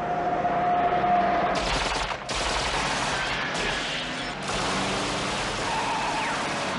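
A car's engine running, then from about a second and a half in a sustained volley of automatic gunfire from several guns as the speeding car is machine-gunned in an ambush.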